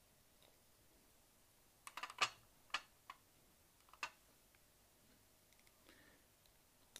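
A few small, sharp clicks and taps from a glass dropper and a stainless-steel and glass vape tank being handled while the tank is filled with e-liquid. There is a quick cluster about two seconds in and single clicks about a second apart after it.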